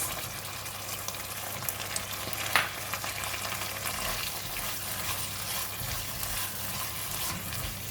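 Thai eggplant and long beans in red curry paste sizzling and crackling in a hot pan, with a brief scrape about two and a half seconds in. A low steady hum runs underneath.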